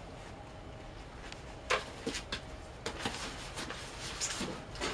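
A few light knocks and rustles from a cardboard box being handled, over a quiet room background.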